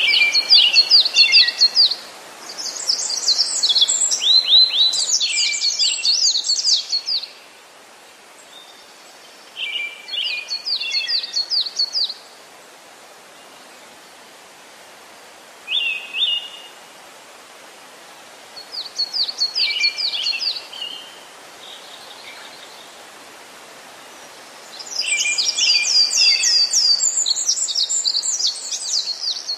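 A songbird singing in bouts of quick, high, repeated phrases a few seconds long, with short gaps between them. A steady hiss runs underneath.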